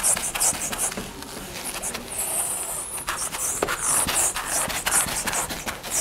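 Whiteboard eraser wiped across the board in repeated short swishing strokes, with one longer sweep about two seconds in.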